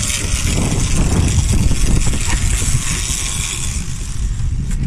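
Motorboat engine running steadily under a dense low rumble of wind and sea noise, with a hiss that thins out near the end and a few sharp clicks just before the end.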